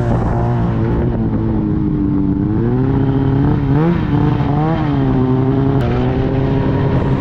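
Ski-Doo snowmobile engine running at idle and being revved, its pitch rising and falling several times with throttle blips.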